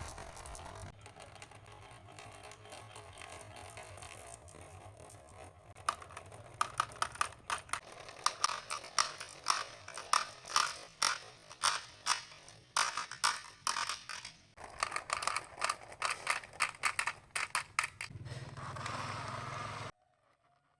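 Marbles rolling down a marble-run track with a steady rumble, then a long stretch of rapid clicks and clacks as the marbles strike each other and the track. The rolling comes back briefly before the sound stops abruptly near the end.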